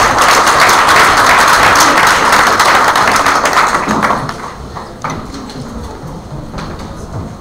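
Audience applauding, loud at first and dying away after about four seconds.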